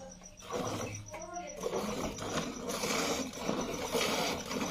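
Milk squirting in spurts from a cow's teats into a foamy, part-filled aluminium bucket during hand-milking: an uneven frothy hissing. A voice speaks briefly about a second in.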